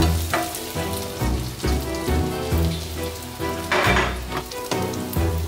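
Carrots, onions and pork fat sizzling as they fry in a frying pan, a steady hiss, with a brief louder rush of noise about four seconds in. Background music plays underneath.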